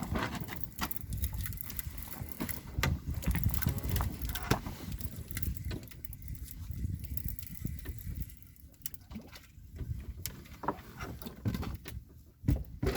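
Wind buffeting the microphone in uneven gusts, with many scattered short clicks and knocks.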